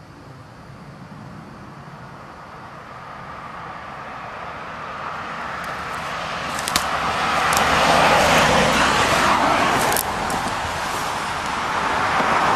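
Road traffic passing: a vehicle's tyre and engine noise swelling over several seconds to its loudest about eight seconds in, then a second vehicle coming up near the end, with a few sharp clicks along the way.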